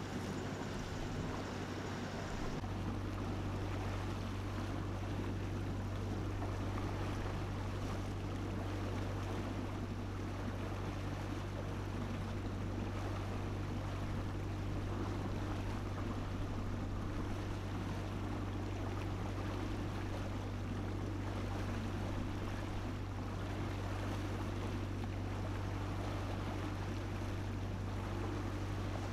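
A small tugboat's engine running steadily under way, a low droning hum, with water rushing and churning in the wake. The hum grows louder about two and a half seconds in.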